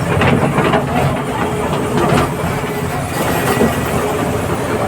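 Komatsu D85ESS crawler bulldozer's diesel engine running loud and steady, with irregular metal clanks over it.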